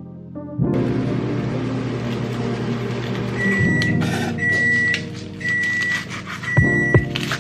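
Microwave oven running with a steady hum, then beeping four long times about a second apart as its cycle ends. Light crackling of lettuce leaves being torn by hand runs alongside.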